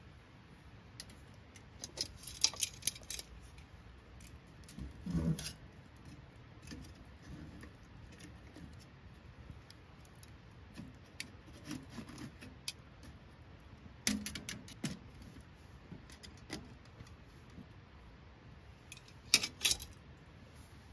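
Scattered light metallic clinks and clicks in short clusters, as of small hard objects being handled, with a duller knock about five seconds in; the sharpest clinks come near the end.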